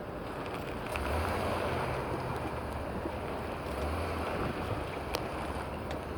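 Steady rumble with wind noise on the microphone and a low hum from about a second in. A few sharp pops sound over it, the clearest about five seconds in: the front-end popping a 2017 Chevrolet Silverado makes when it is turned.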